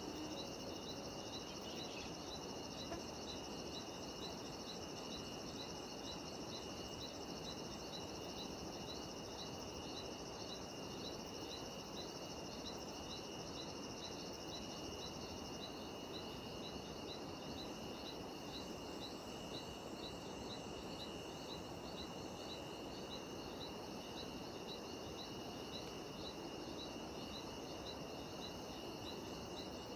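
Insect chorus with cicadas in it: a steady high-pitched drone and a regular pulsing chirp about twice a second. The highest band of the drone stops about halfway through.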